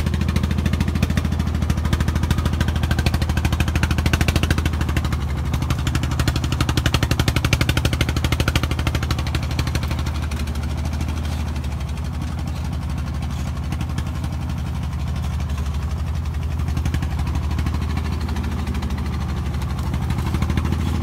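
Engine of a homemade truck heavily laden with sacks of corn, labouring up a steep dirt slope with a fast, even beat. It eases off a little after the middle and picks up again near the end.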